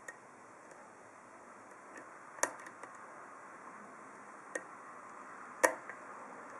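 Sharp metallic clicks of a hook pick working the pin stacks of a Best 7-pin interchangeable-core padlock under light tension: four separate clicks, the loudest about two and a half and five and a half seconds in.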